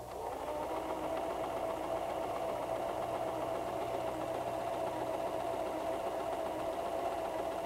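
White 1735 sewing machine running, coming up to speed at the start and then holding a steady, even hum as it sews a reinforced straight stitch on knit fabric.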